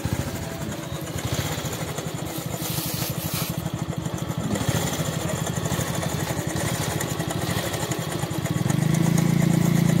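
Bajaj Pulsar motorcycle's single-cylinder engine idling with an even, pulsing beat. About eight and a half seconds in it revs up a little and holds the higher, louder note.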